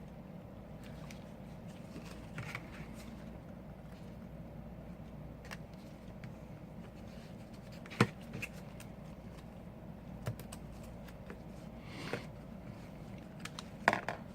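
Small tools and parts clicking and tapping while an iPhone 5c is worked on, with a few sharper single clicks about eight, ten, twelve and fourteen seconds in, over a low steady hum.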